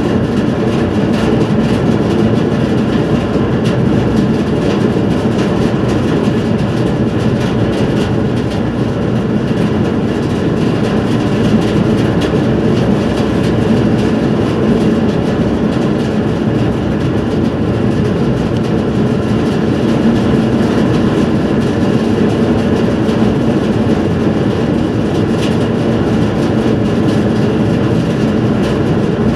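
Steady drone of a car ferry under way: engine and machinery hum with a rushing wind noise over the open bow deck, unchanging throughout.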